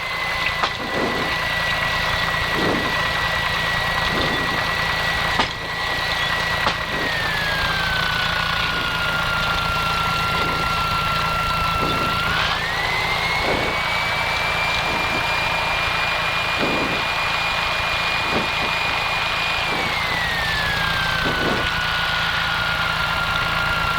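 Light aircraft's piston engine running at low taxi power, heard from inside the cockpit. Its pitch drops about seven seconds in, rises again about twelve seconds in and drops near the end as the power is changed.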